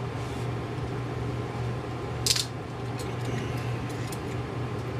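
A steady low electrical hum, with a few light clicks and taps over it; the sharpest comes a little past two seconds in.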